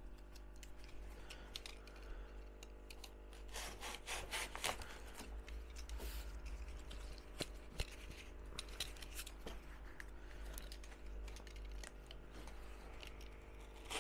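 Cardboard strips scraping and rustling as they are squeezed and pushed into a wooden frame, with a few sharp clicks and taps, busiest around four to five seconds in.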